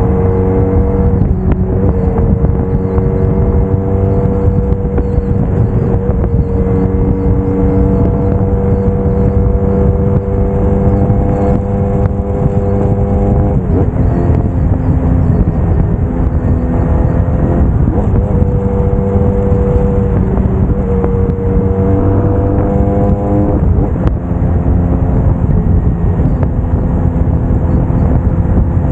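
Braaap Moto4 motorcycle engine running at a steady cruising pitch over a heavy low rush of wind and road noise. Its pitch dips and recovers briefly a few times as the throttle is eased and reopened.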